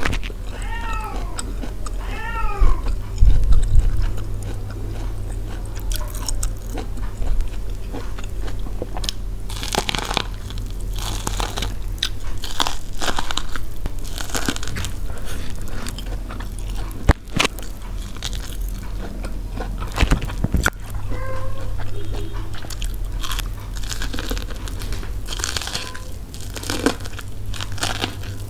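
Biting into and chewing steamed corn on the cob: repeated short crunches as kernels are bitten off the cob, with chewing in between, over a steady low hum.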